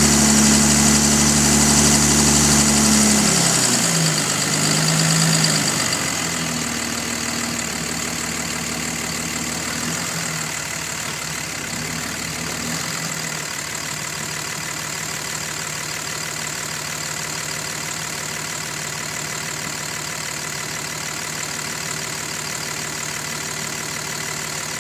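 2005 Dodge Ram 2500's 5.9-litre Cummins inline-six turbodiesel running. Its speed and loudness fall over the first few seconds, then it settles into a steady idle. This is the faint ticking or knocking engine noise that the owner can't explain, loudest when cold.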